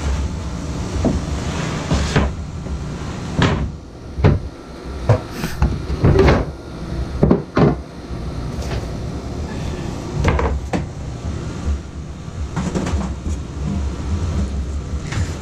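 Irregular knocks, bumps and scrapes in the boat's interior cabinetry as PEX water tubing is pushed and pulled through it, over a steady low rumble.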